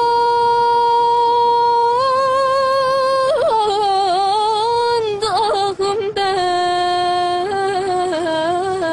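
A young woman singing a Turkish uzun hava unaccompanied. She holds one long high note for about three seconds, steps slightly higher, and then sings ornamented turns in free rhythm. After two brief breaths, about five and six seconds in, she settles onto lower held notes with a slight waver.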